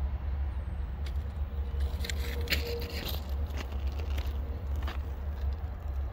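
Freight train cars rolling away on the rails: a steady low rumble with scattered metallic clicks and scrapes from the wheels, busiest between about one and five seconds in, and a brief squeal about two and a half seconds in.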